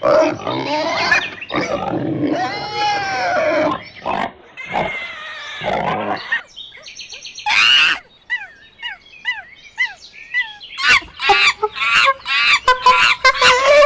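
A string of different animal calls cut one after another: loud, harsh calls with bending pitch for the first six seconds, then a row of short falling chirps, then a quick run of sharp calls near the end.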